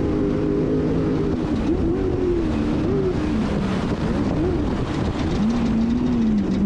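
Off-road race vehicle's engine running hard, its pitch rising and falling with the throttle over a steady rushing noise.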